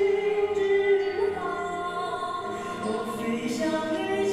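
Live concert performance of a pop ballad: a male singer's voice holding long, steady notes with musical backing.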